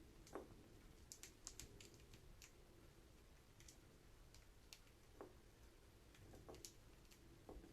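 Faint, irregular light clicks and taps from pet budgies moving about, pecking and scratching at hard surfaces, with a few slightly heavier taps among the sharp ticks.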